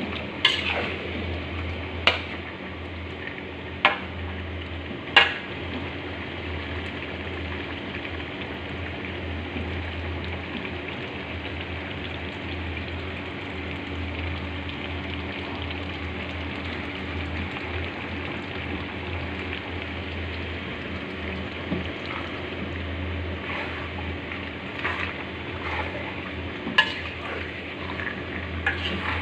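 Jengkol frying and sizzling in a pan as it is stirred, with a steady hiss. A metal spatula knocks sharply on the pan four times in the first five seconds and a few more times near the end.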